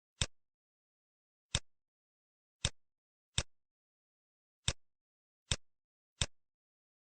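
Computer mouse clicking: seven single sharp clicks at uneven intervals, with dead silence between them.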